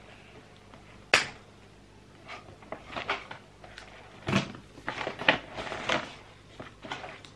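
A sharp click about a second in, then irregular rustling and crinkling as a printed paper label band is worked off a crocheted bag.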